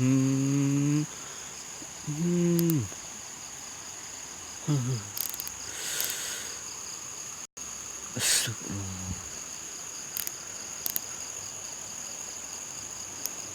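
Steady high chirring of night insects such as crickets, with a few short, low, voice-like hums in the first three seconds, again about five seconds in and about nine seconds in, and two brief rustles between them.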